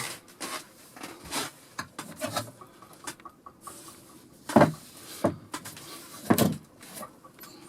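Scattered knocks and clicks of things being handled, with two louder sharp thuds, about four and a half and six and a half seconds in.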